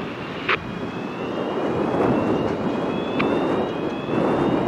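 Dockside ambience: a steady low rumble of wind and distant engines, with a faint high whine that rises slowly in pitch. Two short sharp clicks come about half a second in and about three seconds in, the first the louder.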